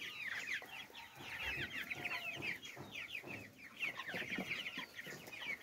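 A flock of four-week-old broiler chickens peeping continuously while they feed: many short, high peeps, each falling in pitch, overlapping one another.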